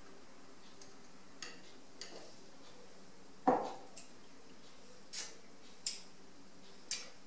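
Someone sipping and tasting a glass of iced coffee: soft mouth clicks and lip smacks, with one louder knock about three and a half seconds in as the glass is set down on the countertop. A faint steady hum runs underneath.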